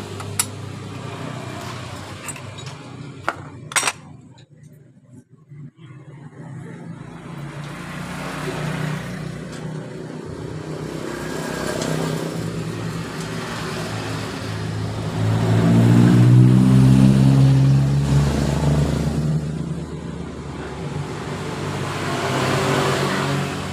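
A motor vehicle engine running nearby, rising in pitch and growing louder about two-thirds of the way through. In the first four seconds there are a few sharp metallic clicks from tools on the clutch assembly.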